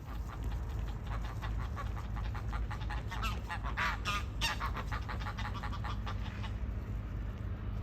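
Waterfowl giving a rapid run of short quacking calls, busiest around the middle and dying away about a second before the end, over a steady low rumble.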